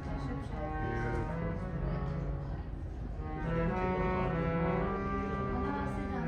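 Live Pakistani classical music: a harmonium holding sustained reedy notes and playing a melody, with tabla accompaniment. It gets louder about three and a half seconds in.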